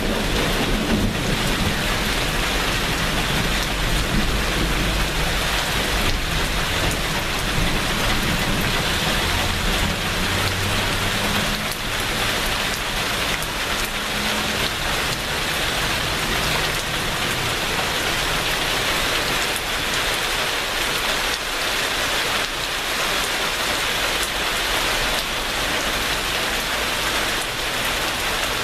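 Steady heavy rain falling, with a low rumble of thunder under it that fades out about halfway through.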